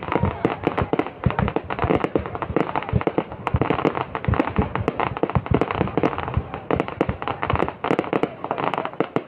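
Fireworks shooting red stars up from the ground, going off in a dense, rapid crackle of small pops and bangs.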